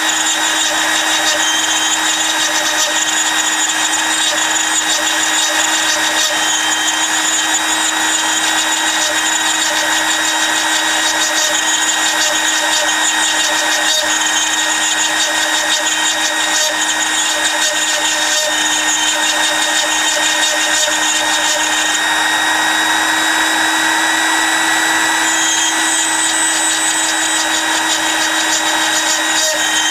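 Dremel high-speed rotary tool running steadily with a whine, its 1/8-inch diamond bit grinding a hole through a piece of glass held underwater.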